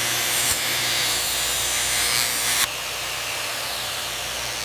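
Handheld angle grinder grinding a steel ring: a harsh, high hiss over a low motor hum. It cuts off abruptly a little past halfway, leaving a quieter, steady hiss.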